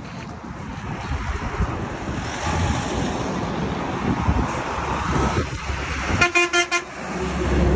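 Passing highway traffic, its noise building over several seconds, then a vehicle horn sounding in a quick run of short toots near the end.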